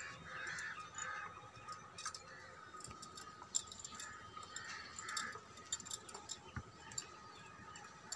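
Quiet horse-yard ambience: faint scattered clinks and taps over a faint steady high hum.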